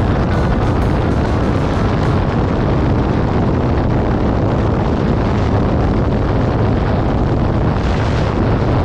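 Loud, steady wind rush and buffeting on the microphone at highway speed, about 100 km/h, with the Honda CBR 250R's single-cylinder engine running at a steady cruise underneath.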